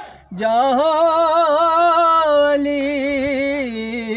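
A man singing an Urdu naat solo, drawing a breath and then holding one long melismatic note with a wavering pitch that steps down near the end.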